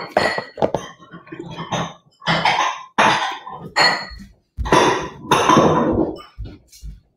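Dishes clinking and knocking as a bowl is taken down from a kitchen cabinet: a string of irregular knocks, some ringing briefly.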